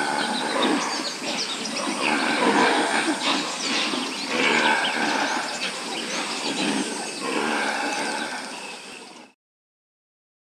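Antelope calling: a run of about five rough, throaty calls, one roughly every two seconds, fading out and stopping about nine seconds in.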